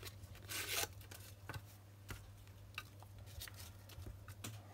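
Handling noise from a lithium cell pack being pulled out of an old 6 V sealed lead-acid battery case: a scratchy rustle just under a second in, then scattered light clicks and knocks of plastic, the sharpest at the very end. A faint steady hum runs underneath.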